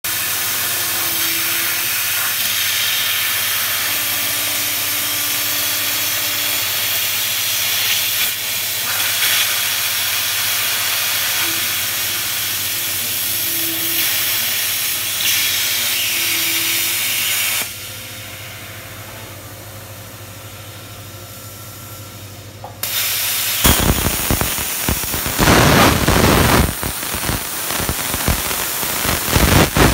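CNC plasma torch cutting 3/8-inch steel plate: the arc makes a steady, loud hiss. Past the middle it drops away for about five seconds, then comes back louder and rougher, with uneven surges.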